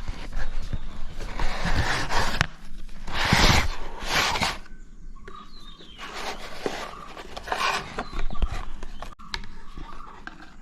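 Packaging of a GoPro 3-Way 2.0 grip being handled and opened by hand: irregular rustling and scraping with small clicks. The loudest rustle comes about three and a half seconds in.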